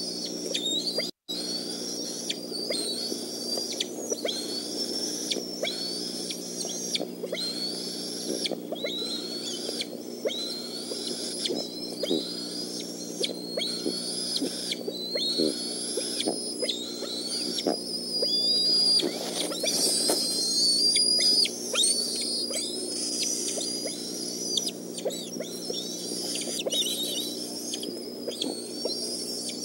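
Bald eagles calling again and again with short, high-pitched chirping whistles, each call bending quickly in pitch, loudest in a cluster partway through, over a steady low hum. The sound cuts out completely for a moment about a second in.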